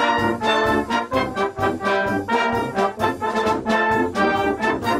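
A brass band playing, trombone prominent, in a run of short, clearly separated notes.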